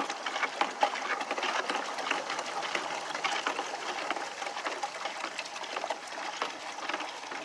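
Water pouring steadily from a plastic gallon jug into a plastic five-gallon bucket of soda ash solution, a continuous splashing with small irregular patters.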